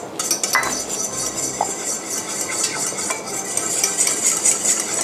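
A fork beating egg and milk in a stainless steel bowl: rapid, continuous clinking of metal on metal, a little louder near the end.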